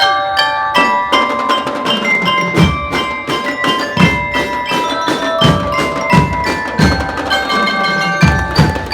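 A drum and lyre band playing. Bell lyres ring out a melody, percussion strikes join about a second in, and low bass drum beats come in about two and a half seconds in.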